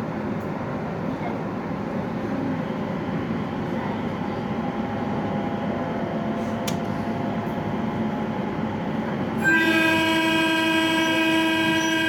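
A JR East 701 series electric train running, with its horn sounding once, one steady blast of about three seconds near the end.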